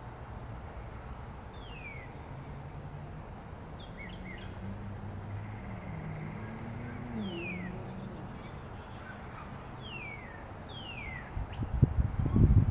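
Several quick, falling bird chirps over a steady low rumble, the distant Boeing 747-8 freighter's engines high overhead. Near the end come a few loud, low thumps.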